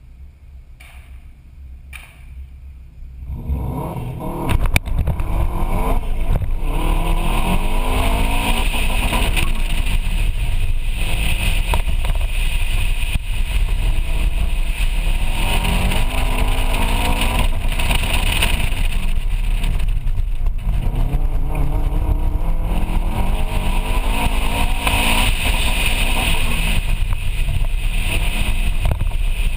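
Subaru Impreza WRX STi's turbocharged flat-four engine, running low for the first three seconds or so, then pulling away hard. From there the revs climb and drop again and again as the car is driven flat out, with a single click a second or so after it sets off.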